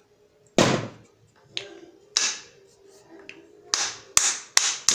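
A white plastic-headed mallet striking a nylon bushing set against an air rifle's muzzle brake, about six sharp blows at uneven intervals. The blows are meant to break the red threadlocker's hold and drive the muzzle brake off the barrel.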